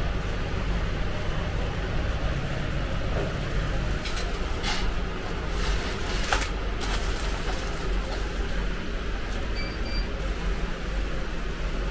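Steady low rumble of background noise. A few short crackles and clicks come in the middle, and a brief high beep sounds near the end.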